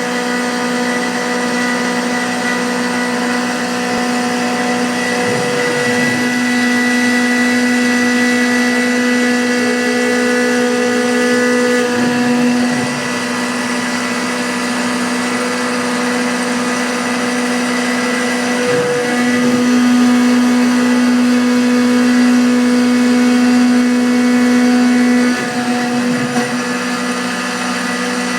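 Tormach CNC milling machine cutting metal: a steady spindle and cutter whine with strong fixed tones, shifting in pitch and level about every six or seven seconds as the cutter changes pass.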